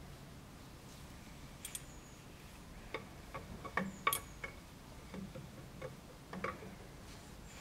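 Light metallic clicks and taps, scattered over a few seconds, as steel parts are handled at the timing-gear end of a stripped Ford Model Y sidevalve engine: a shaft at the crankshaft nose and a timing gear being positioned.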